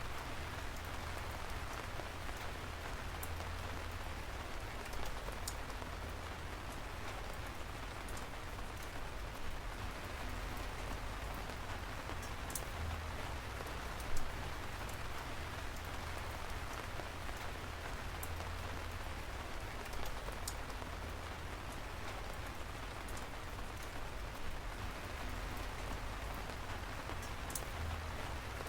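Steady rain falling, an even hiss of drops on a surface, with now and then a single sharper, louder drop hit standing out.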